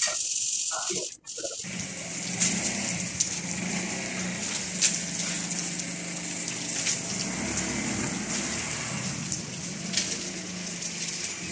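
Steady background hiss with a low hum and a few faint clicks, starting after a short muffled stretch that cuts off about a second and a half in.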